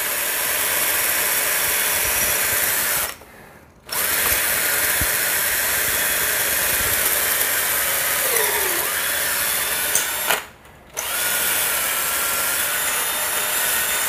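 Cordless drill running in plain rotary mode, no hammer, boring a tile bit into a glazed ceramic wall tile: a steady grinding whir. It stops briefly twice, about three seconds in and about ten seconds in, then starts again.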